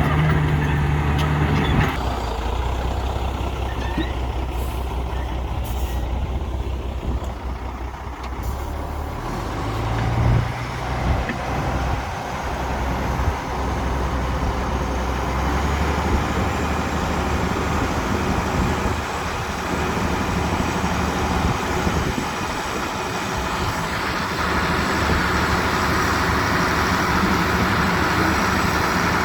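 Heavy diesel construction machinery running at a fill site, the engines holding a steady low note. The engine note shifts briefly about ten seconds in, and a broad, rougher noise builds through the second half.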